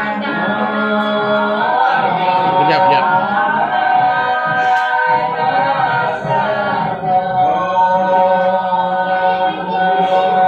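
A group of people singing together, unaccompanied, in long held notes.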